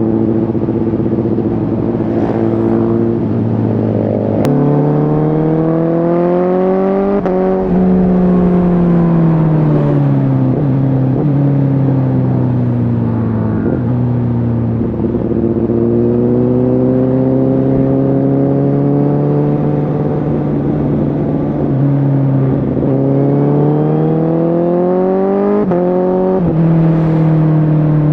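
2019 Honda CBR1000RR Fireblade SC77's inline-four engine through a Shark Factory aftermarket exhaust, pulling hard with its pitch climbing to a quick upshift about seven seconds in. The pitch then falls for several seconds as the bike slows, rises and eases again, and climbs to another shift near the end.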